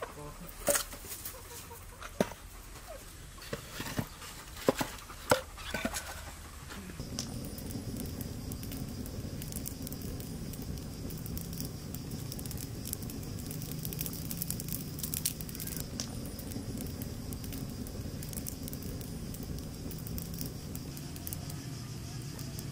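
Split logs knocking against each other as they are stacked in a fire pit, several sharp wooden knocks over the first six seconds. Then a wood fire burning with a steady low rush, chickens clucking nearby.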